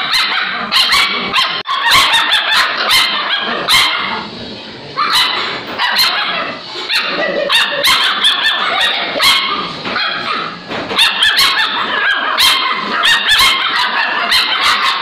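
Alaskan Malamute puppies vocalizing back and forth at one another in short, rapid calls, with a brief lull about four seconds in.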